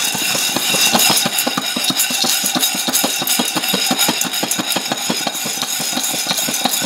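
Green coffee beans rattling and tumbling inside a Daiso hand pot with a glass lid as it is shaken continuously over a gas burner: a dense, irregular clatter of many small clicks. These are the first moments of a hand-pot coffee roast, with the beans still raw.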